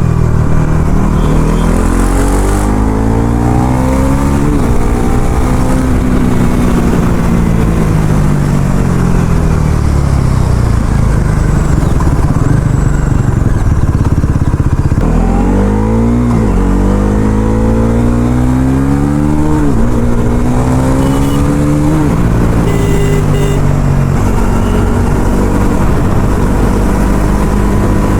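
Bajaj Pulsar NS400Z's single-cylinder engine on its stock exhaust, accelerating hard through the gears: the note climbs and drops sharply at each quick upshift, then falls away as the throttle eases off. This happens twice, the second run starting about halfway through.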